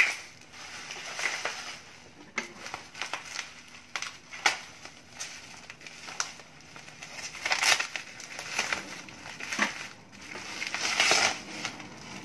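Plastic bubble wrap crinkling and crackling as it is handled, cut with scissors and pulled off a box, with louder rustling bursts about two thirds of the way in and near the end.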